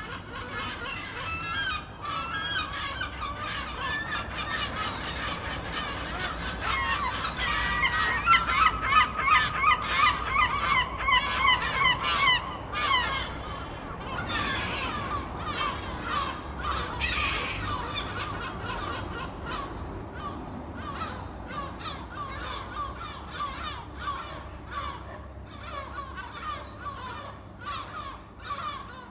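A flock of seagulls squawking, many harsh cries overlapping one another. The calls come thickest and loudest in the middle stretch.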